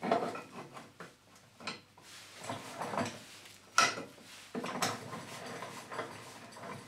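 Metal clanking, knocking and scraping as an adapter plate and a square steel tube are set by hand into a chop saw's steel vice, with one sharp clank a little under four seconds in.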